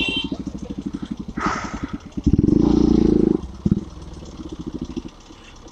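Bajaj Pulsar NS125 single-cylinder engine with an aftermarket SC exhaust, running with a fast, even popping beat. It revs loudly for about a second, starting about two seconds in, then gives one short blip and settles back to a quieter rhythm near the end.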